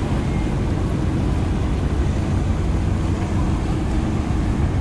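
Steady low rumble of a motor boat's engine running.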